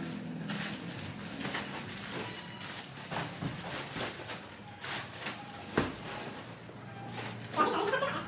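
Plastic bags rustling and a cardboard box being handled, in scattered crinkles and knocks with one sharp knock about six seconds in. A brief high, wavering voice-like call comes near the end.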